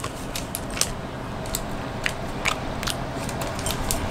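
Plastic candy wrapper crinkling as it is handled and picked open, an irregular scatter of short sharp crackles.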